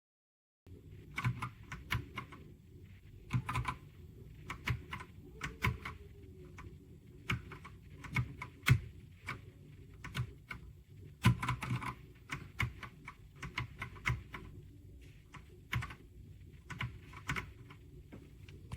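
Typing on a Redragon K668 full-size mechanical keyboard: irregular runs of key clicks with short pauses between them, over a steady low hum.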